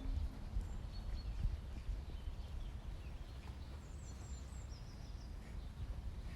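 Outdoor ambience: small birds chirping in short high calls every second or so over a steady low rumble.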